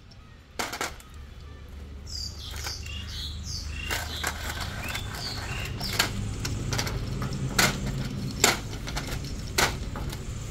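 Birds chirping in quick high twitters for a couple of seconds, over a low steady hum, with a handful of sharp metallic knocks spaced a second or more apart.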